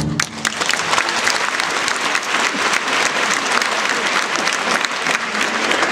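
The orchestra's final chord breaks off in the first moment, then a theatre audience applauds steadily.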